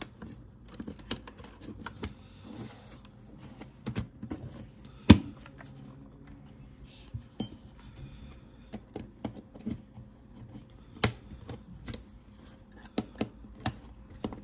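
Irregular clicks and light metallic taps as the metal bracket and a small screwdriver are worked against the aluminium case of an Apple USB SuperDrive, with one sharper click about five seconds in.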